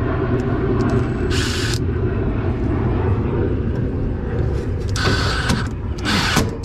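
Cordless impact driver zipping sheet-metal screws into the heat exchanger in short bursts, once about a second in and twice near the end, over a steady low rumble.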